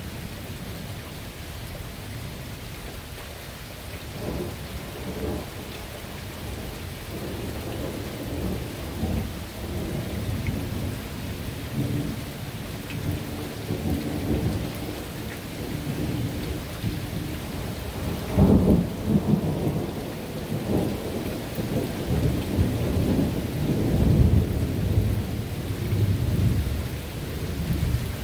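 Steady rain with long rolling thunder that builds from a few seconds in, growing into a louder crack and rumble about two-thirds of the way through and swelling again near the end.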